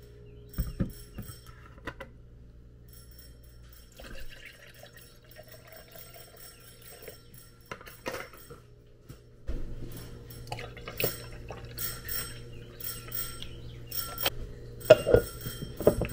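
Liquid poured into a tall glass jar, with glass clinks and knocks throughout; the loudest knock comes near the end as a lid is set on the jar.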